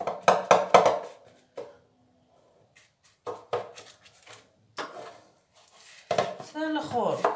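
Silicone pastry brush dabbing melted ghee onto phyllo sheets in an aluminium baking tray: a quick run of sharp knocks in the first second, then a few scattered taps. Near the end comes a short pitched sound that slides downward, like a voice.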